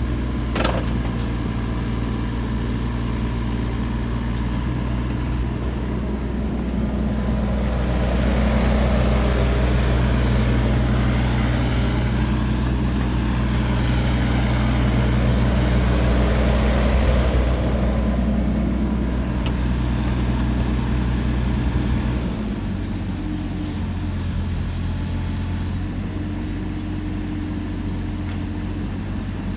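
Kubota RX-406E mini excavator's diesel engine running steadily, with a click just under a second in. A louder hiss and whine builds and fades over the middle stretch as the machine works, and at about 22 seconds the engine settles to a lower, quieter speed.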